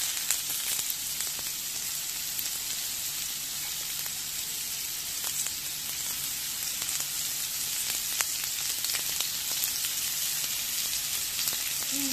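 Rump steak, asparagus and button mushrooms sizzling on a ridged grill plate: a steady frying hiss with a few sharp crackles scattered through it.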